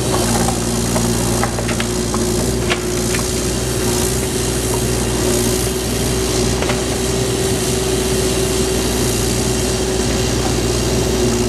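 Compact excavator's diesel engine running steadily, with a steady whine over its low hum. A few sharp cracks in the first three seconds and one near seven seconds as the track moves off the crushed stool.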